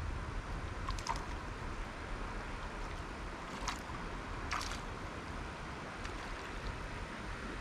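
Steady rushing of river water with a low rumble, broken by three brief sharp sounds about one, three and a half and four and a half seconds in.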